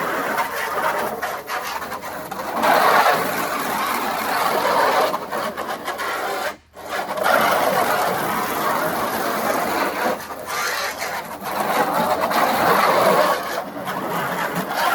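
Garden hose spraying water, a steady hiss that breaks off sharply for a moment about halfway through, then carries on.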